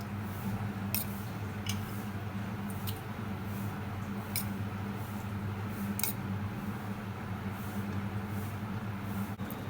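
A few light clicks, a small metal teaspoon tapping the paniyaram pan as ghee is spooned into its hollows, over a steady low hum.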